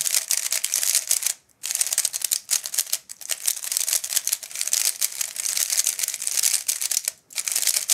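A new MoYu RS3M V5 magnetic 3x3 speedcube turned quickly by hand: a dense run of fast plastic clicks and clacks as the layers snap through their turns, with brief pauses about one and a half seconds in and near the end.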